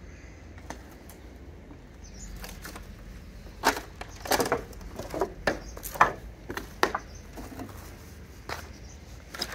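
Footsteps crunching on dry leaves and twigs: a run of sharp crunches about two a second in the middle, with fainter ones before and near the end.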